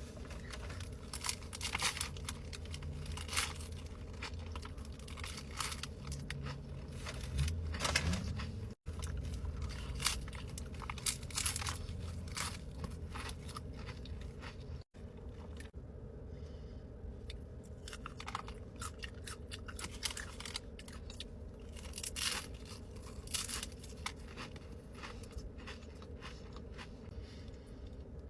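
Close-up eating sounds: a person biting and chewing food, with many short crunchy crackles and some wrapper crinkling, over a low steady hum. The sound drops out abruptly twice, about nine and fifteen seconds in.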